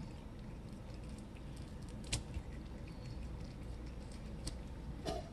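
Orange cat chewing a raw chicken leg: soft, wet chewing with scattered clicks of teeth on meat and bone, and one sharper snap about two seconds in.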